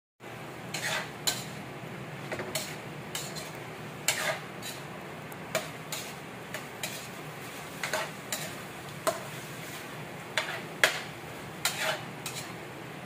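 Metal spatula stirring chicken in a metal frying pan, scraping and knocking against the pan in irregular sharp clinks, the loudest about eleven seconds in. The chicken sizzles steadily underneath.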